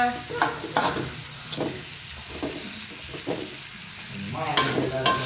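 Long metal spatula stirring and scraping a sambal around a metal wok, in short irregular strokes, with the oil sizzling lightly underneath.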